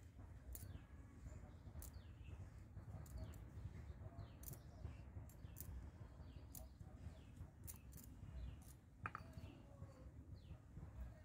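Faint, short, high bird chirps repeating every half second to second over a low rumble, with a single knock about nine seconds in.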